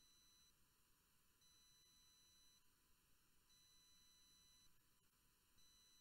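Near silence, with very faint high steady tones pulsing on and off about every two seconds.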